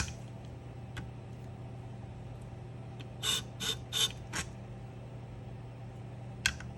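Wolff Twice As Sharp scissor-sharpening machine's motor humming steadily, with four quick ratchet-like mechanical clicks about three seconds in.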